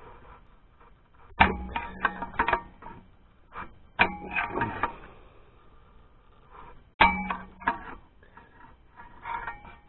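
Hammer tapping a steel bar to tighten a part, in short groups of strikes, with a metallic ring after each hard blow. Three heavy strikes come about a second and a half, four and seven seconds in, with lighter taps after each and one more near the end.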